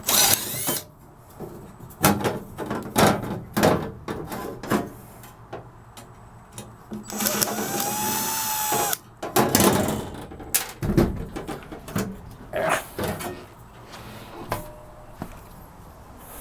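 Sheet-metal work on a steel floor patch: irregular hammer knocks and metal clanks, with a power tool whirring for about two seconds midway.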